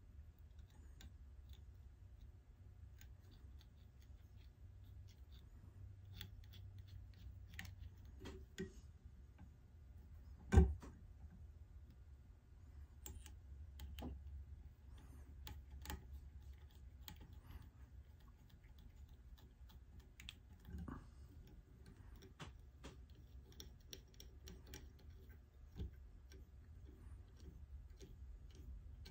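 Faint clicks and rustles of hands and thread working at a hook in a fly-tying vise as extra-small chartreuse eyes are tied on. One sharp knock comes about a third of the way in, and a few softer taps come later, over a low steady hum.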